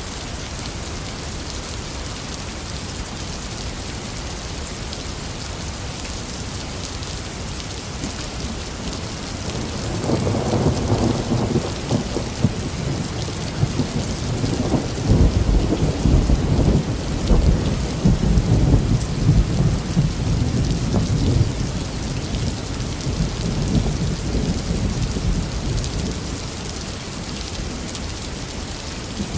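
Heavy rain falling steadily, with a long roll of thunder that builds about a third of the way in, rumbles loudest through the middle and fades away near the end.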